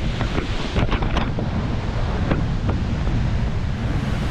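Loud, steady rush of a waterfall mixed with wind buffeting the microphone, with a few short sharp clicks about a second in and again a little after two seconds.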